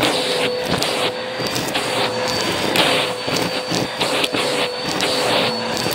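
Vacuum cleaner running over carpet with a steady motor whine, while dry beans from a 15-bean soup mix crunch and clatter up the nozzle in quick, irregular clicks.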